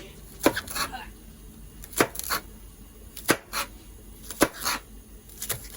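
Kitchen knife chopping on a cutting board in slow, separate strokes, often two close together, about every second and a half.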